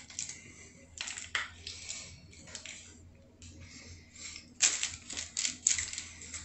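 Short crinkly, crunching rustles of a burger being handled and eaten, coming in scattered bursts, loudest about five to six seconds in.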